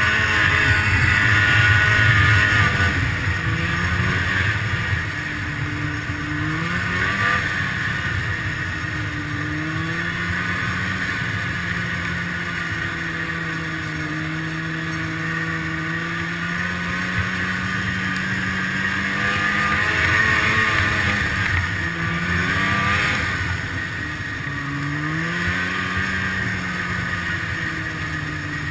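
Snowmobile engine running under way, heard from on board over a steady rushing hiss, its pitch climbing and dropping several times as the throttle is opened and eased.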